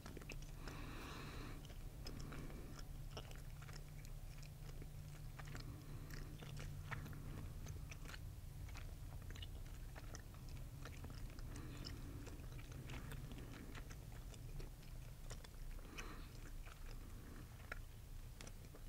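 A person chewing gum close to the microphone, with irregular small clicks of the mouth.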